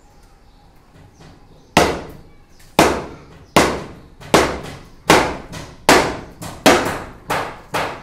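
A run of about nine hard knocks, a little under a second apart, starting about two seconds in, each ringing out briefly under the slab: blows at the foot of bamboo shoring props to knock them loose as the formwork is stripped.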